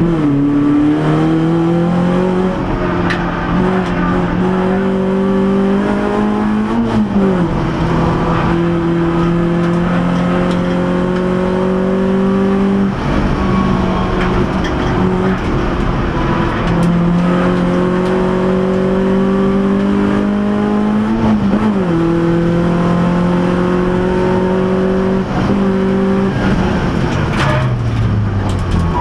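Renault Clio RS race car's four-cylinder engine heard from inside the cabin, pulling hard with its pitch climbing slowly. The pitch drops sharply at gear changes about seven and twenty-two seconds in, the note breaks off briefly around thirteen seconds, and the revs fall away near the end.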